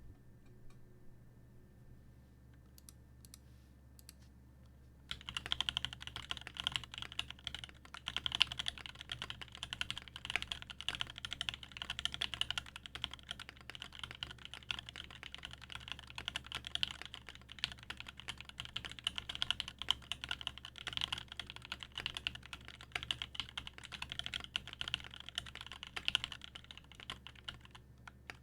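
Duck Orion 2.5 custom mechanical keyboard, with an aluminum plate, lubed and filmed Original Aspirations switches and GMK keycaps and no case foam, being typed on. A few faint clicks come first, then fast, continuous typing starts about five seconds in, with a brief lull near the end.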